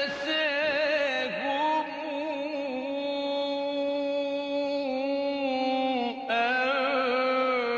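A man's voice reciting the Quran in the melodic mujawwad style, holding long drawn-out notes with a wavering vibrato, with one short break for breath about six seconds in.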